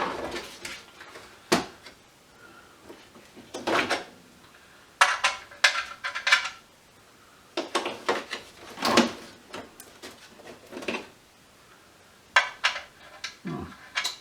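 Small metal hand tools from a little tool kit clinking and rattling against each other as they are handled and sorted, in several separate bursts of clinks.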